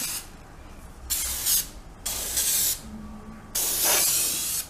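Aerosol baking spray hissing from the can into a non-stick cake tin in three short bursts, the last about a second long.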